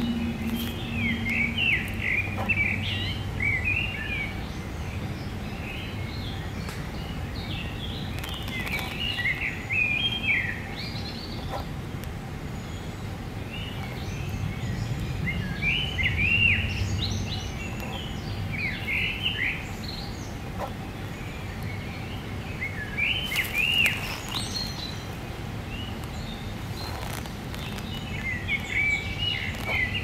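Songbirds singing in short, quick phrases every few seconds over a steady low background hum.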